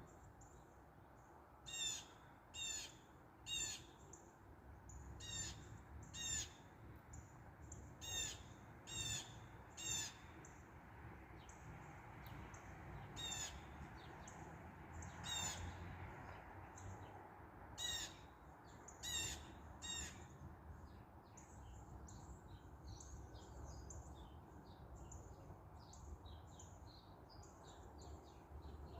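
Birds calling: loud, harsh calls repeated in runs of two or three about a second apart, with fainter, quicker chirps from other birds in the second half, over a steady low background rumble.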